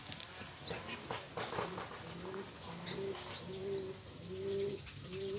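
Domestic racing pigeons cooing, a low coo repeated several times from about two seconds in. Two sharp, high, falling chirps from another bird come about a second in and about three seconds in.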